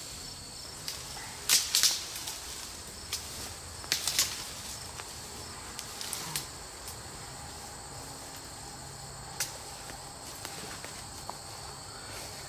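Insects, crickets or cicadas, trilling in a steady high-pitched hum. Over it come a few sharp crackles and rustles of cut brush, loudest about one and a half and four seconds in.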